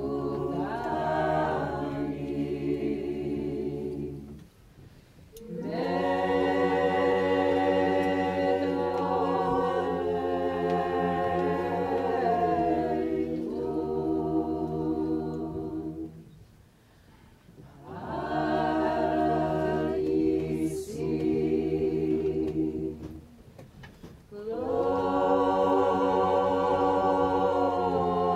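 Mixed choir of men's and women's voices singing a cappella, in long held phrases with short pauses between them.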